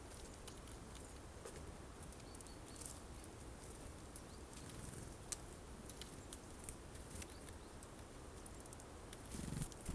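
Tits at a seed feeder: scattered light sharp ticks and taps, with a few faint short high call notes. A dull thump, the loudest sound, comes near the end.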